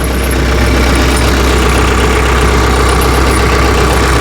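Tractor engine idling steadily with a constant low hum.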